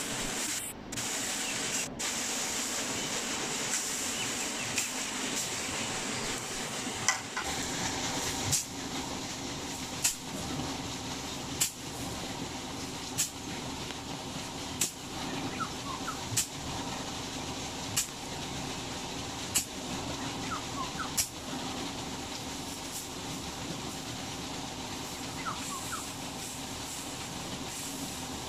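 Dry straw rustling and swishing as it is tossed and spread with a long bamboo pole, over a steady hiss. Through the middle, a sharp tap comes about every second and a half.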